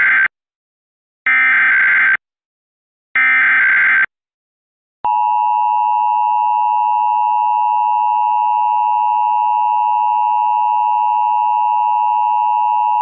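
Emergency Alert System alert opening: the SAME header's three short bursts of screechy digital data tones, the last ending about four seconds in, then about a second later the EAS two-tone attention signal (853 and 960 Hz sounding together) starts as a loud, steady dual tone. Together they announce a required monthly test of the Emergency Alert System.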